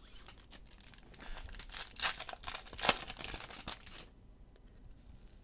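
Foil wrapper of a basketball card pack being torn open and crinkled, with the loudest crackles about two and three seconds in. It stops about four seconds in.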